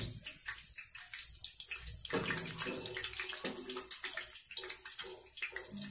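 Black-eyed pea vadas deep-frying in hot oil on a medium flame, a steady sizzle full of fine crackles as they are turned in the pan. There is one sharp click about three and a half seconds in.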